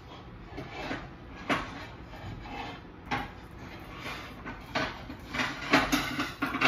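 Kitchen handling sounds: a few separate short knocks and clinks of dishes and utensils, with a quicker cluster of them near the end.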